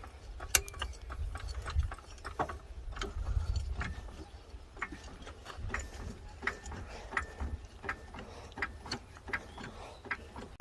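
Hand tools working on metal car parts: irregular clicks and clinks, some with a short metallic ring, over a low rumble.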